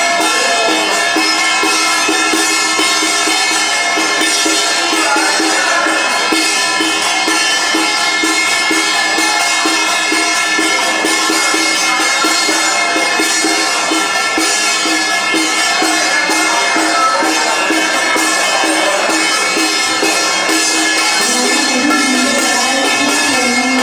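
Loud, continuous music: busy jingling percussion over sustained tones, with no break.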